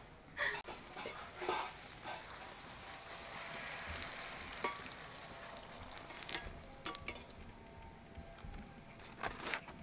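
A poori deep-frying in hot oil in a metal kadai: a steady sizzle, with a few light clicks from the slotted spoon against the pan.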